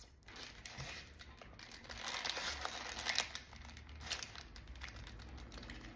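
Close-miked eating sounds: faint, irregular crackling and crinkling while a breaded, fried Nashville Hot mozzarella stick is bitten and chewed, a little louder partway through.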